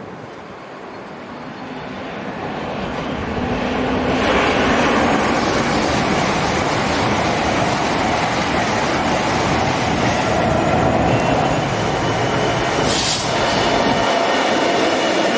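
LNER Azuma high-speed train passing close by on electrified main line track: a rush of wheel and running noise that builds over the first few seconds as it approaches, then holds loud and steady while the coaches go past. A short high hiss sounds near the end.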